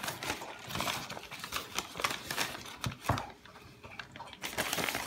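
Wrapping paper crinkling and rustling as hands pull it back from potted orchid plants, in short irregular crackles, with a soft knock or two about three seconds in.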